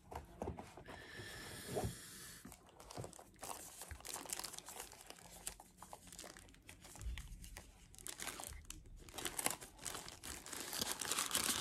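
Protective paper and plastic packaging wrapping crinkling and rustling as it is handled and pulled apart, with small sharp clicks. It grows busier and louder near the end.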